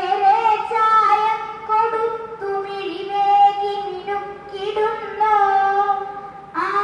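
A girl's voice chanting a verse (sloka) in a sung, melodic style, in long held phrases with short breaks for breath.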